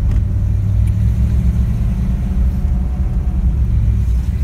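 A 1962 Cadillac's 390 V8 and tyres heard from inside the cabin while driving: a steady low rumble.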